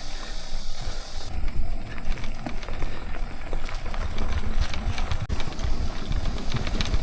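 Mountain bike ridden along a trail: wind buffets the microphone in a rising and falling low rumble, and scattered clicks and knocks come from the bike going over rough ground.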